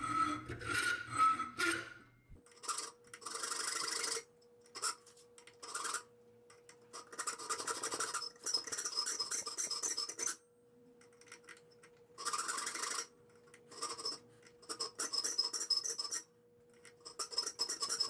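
A checkering file rasping back and forth across the spine of a 1095 steel knife blade held in a vise, cutting thumb jimping. The strokes come in short runs of about a second with brief pauses between.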